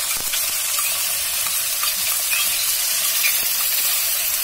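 Hot mustard oil sizzling in a metal kadhai, with a ladle stirring and scraping against the pan and small ticks, as finely chopped onions are tipped in.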